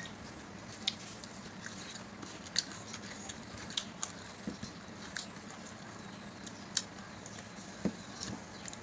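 Eating sounds of people eating rice and chicken with their hands: scattered soft clicks and smacks of chewing and of fingers working food on the plates, about one or two a second at irregular intervals, over a faint steady hum.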